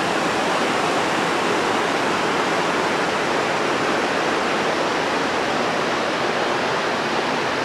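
A shallow river rushing over a rocky bed below, a steady, even rush of water.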